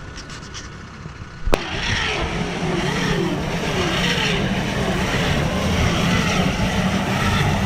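Claas Arion 650 tractor engine running steadily with a wavering whine over it, suddenly louder after a click about a second and a half in.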